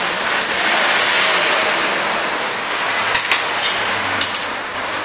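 Passing road traffic: a rushing noise that swells about a second in and then slowly fades, with a few light clicks about three seconds in.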